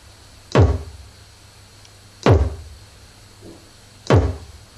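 A synthesized kick drum played on the note C3, hit three times at a steady pace about two seconds apart. Each hit drops fast in pitch from a click into a deep, decaying thud.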